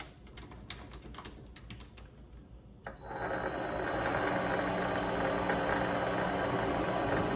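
A few light clicks, then about three seconds in a Vevor mini metal lathe starts up and runs steadily with a constant high motor whine, turning the workpiece for a chamfering cut.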